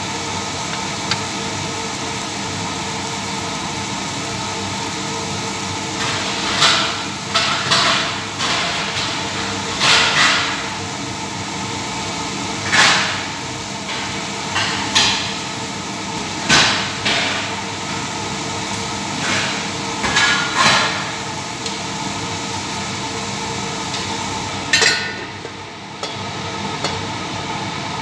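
Chicken pieces frying in a stainless steel pan over a gas flame, a steady hiss, with scattered sharp knocks and clatters of kitchen utensils. Near the end a metal clank comes as the steel lid goes onto the pan, and the hiss briefly dips.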